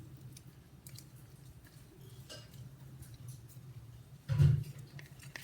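Faint handling noises over a low steady hum, with one loud knock about four seconds in.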